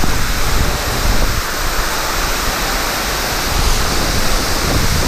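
Waterfall pouring onto rocks right beside the microphone: a loud, steady rush of falling water.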